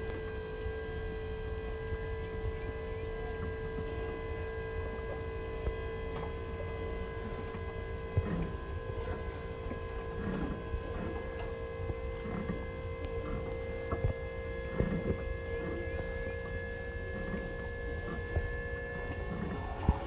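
Electric drive motor of a Sunstream Swiftshield boat-lift canopy running with a steady hum, its pitch rising slightly, as it swings the cover over the boat.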